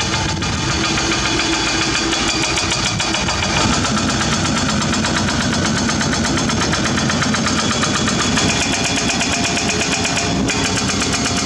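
Diesel engine of a Komatsu hydraulic excavator running steadily at work, its low note shifting slightly about four seconds in.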